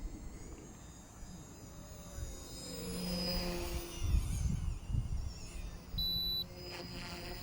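OMP M1 micro RC helicopter's electric motors whining, the pitch rising and falling as it manoeuvres, over wind buffeting the microphone. A short high electronic beep sounds about six seconds in.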